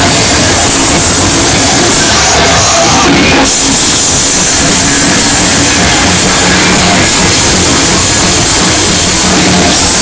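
Live rock band playing loud and heavy: bass guitar, electric guitar and drum kit, a dense wall of sound with no break.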